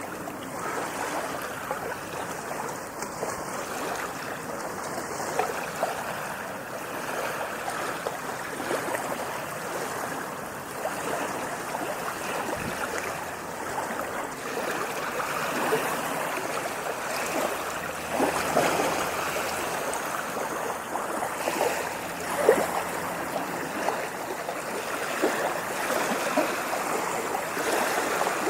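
Water moving and splashing without a break, a dense wash of small splashes and trickles with no pause.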